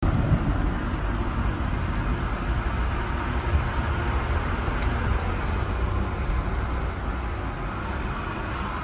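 Steady city street traffic noise, a low rumble of road vehicles.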